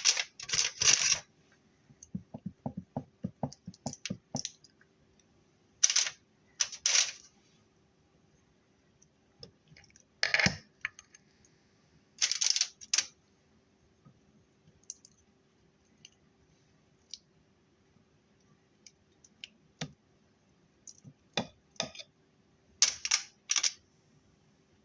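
Intermittent clinks and clatters of raw chicken pieces and kitchen utensils being handled, with a quick run of light clicks about two seconds in, over a faint steady hum.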